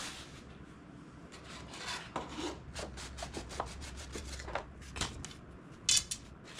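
Light wooden knocks, taps and rubbing as a balsa-sheeted model airplane wing is lifted, turned over and set down on paper building plans. A short, sharp crackle comes near the end.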